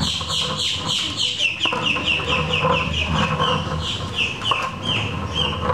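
A bird calling in a quick series of short, falling chirps, about four or five a second.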